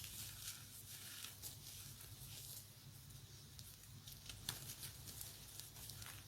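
Pink dyed gym chalk being crushed: faint, irregular crunching and crumbling with scattered small crackles, and one sharper crunch about four and a half seconds in.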